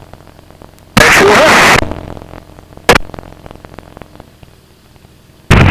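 Aircraft radio heard through the headset feed: a loud, static-laden burst of garbled transmission about a second in, a sharp squelch click near three seconds, then a loud radio transmission cutting in near the end.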